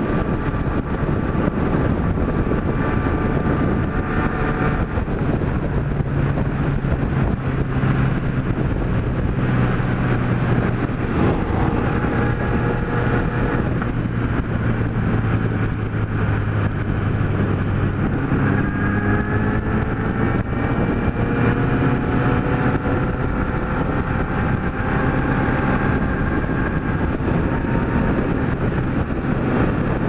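Kawasaki Z1000 inline-four engine running under steady throttle at highway speed through its exhaust, heard from the rider's seat with air rushing past. A little over halfway through, the engine note climbs slowly as the bike picks up speed.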